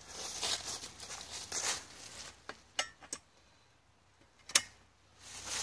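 Footsteps rustling through dry fallen leaves, then a few light clinks and one sharp click as the Disc-O-Bed camping cot's frame parts are handled. The leaf rustling returns near the end.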